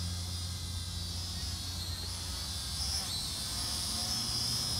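Kaptur GPS II quadcopter's motors and propellers buzzing in a high whine that wavers up and down in pitch as the drone hovers, heard close up from the drone's own camera.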